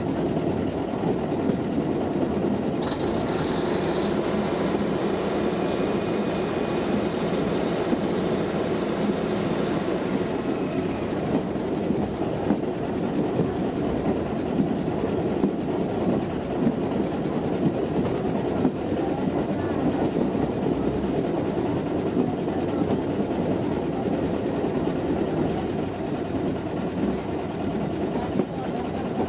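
Indian Railways WRB-1 diesel railbus running along the track, a steady rumble of wheels and engine with rail clatter. A high hiss joins it for several seconds from about three seconds in.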